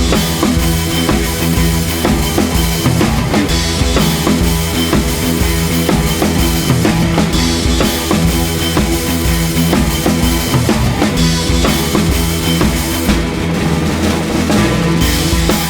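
Background rock music with a driving drum-kit beat and guitar.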